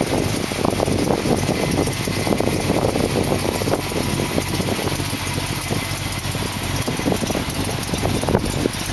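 1972 Dodge Challenger's engine idling steadily.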